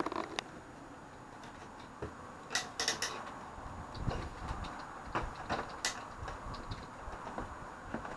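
Handling noise: scattered sharp clicks, a few light knocks and faint rustling as the camera is moved about over a wicker basket. The clicks cluster about two and a half seconds in and again near six seconds.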